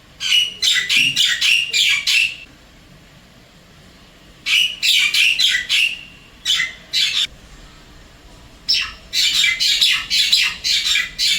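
Javan myna calling: bouts of rapid, harsh, chattering notes, several a second, in three runs with short pauses between them.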